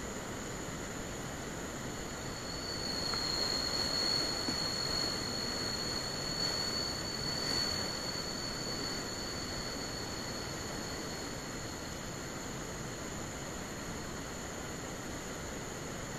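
Steady outdoor hiss with a constant high insect drone, and a second, thinner high-pitched whine that comes in about three seconds in and fades out about eight seconds in.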